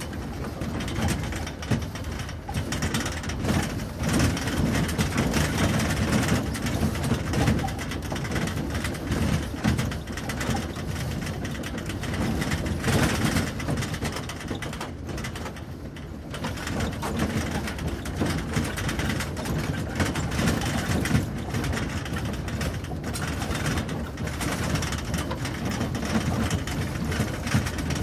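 ATV ride heard from its cargo bed: the bed and its load rattle and clatter without a break, with the engine running underneath and the level swelling and dipping as the ground changes.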